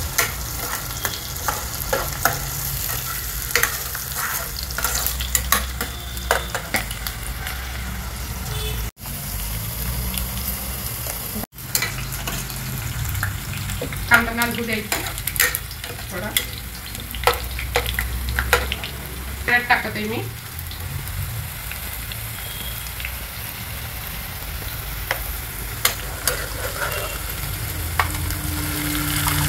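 Chopped onion sizzling as it fries in hot oil in an enamel pot, while a steel ladle stirs it and clicks and scrapes against the pot. The sound drops out briefly twice, near 9 and 11 seconds in.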